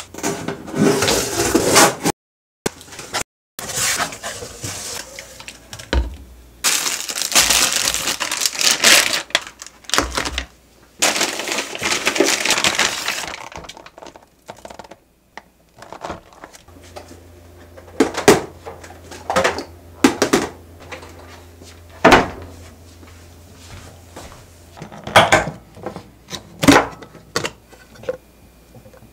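Grocery packaging being unpacked: cardboard and plastic wrapping rustling and crinkling in dense bursts through the first half, cut short several times. Then a run of separate sharp clicks and knocks as plastic food containers are handled on the counter.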